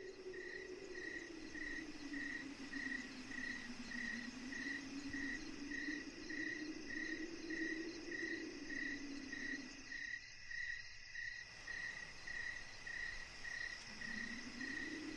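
Crickets chirping in a steady pulse, about two chirps a second, with a low wavering hum beneath that drops out briefly about ten seconds in.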